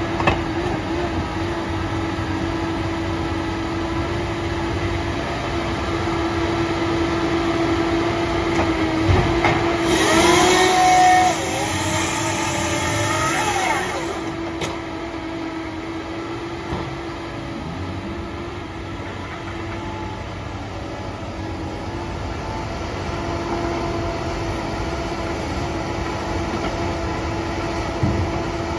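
Barko 295B knuckleboom log loader running steadily with a constant hydraulic whine while its grapple handles a log. About ten seconds in, a louder stretch of whining and hiss with pitch glides lasts about four seconds, and there is a knock just before it and another near the end.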